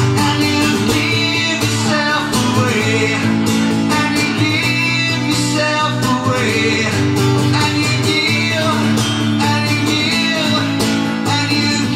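A man singing into a microphone while strumming an acoustic guitar, both amplified through a PA, in a live solo cover of a pop-rock song.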